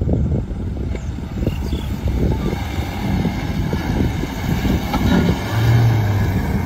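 Mahindra Thar's engine running under load as the 4x4 churns through a soft, muddy field of cut straw, its wheels spinning and throwing mud. The engine note gets stronger for a moment about five and a half seconds in.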